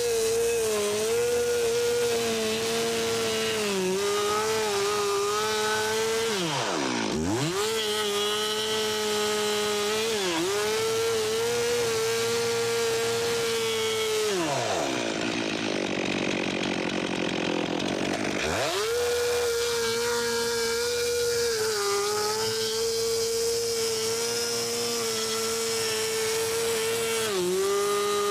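Stihl 362 two-stroke chainsaw run at high revs while bucking wooden slabs into firewood lengths, its pitch sagging briefly each time it bites into the wood. The throttle is let off twice, the engine dropping and picking up again about seven seconds in, and falling to a lower note for about four seconds in the middle before revving back up.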